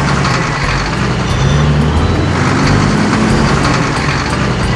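Cartoon truck engine sound effect, running steadily as the tanker truck drives along.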